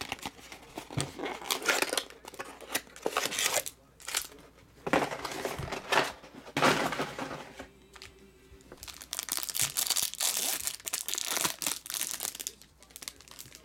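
Crinkling and tearing of the clear plastic wrap around a stack of trading cards, with the cardboard card box being handled, in repeated bursts with short pauses.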